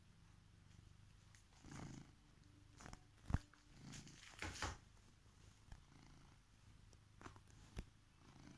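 Domestic cat purring steadily and faintly, with scattered soft rustles and taps, the sharpest a single click about a third of the way in.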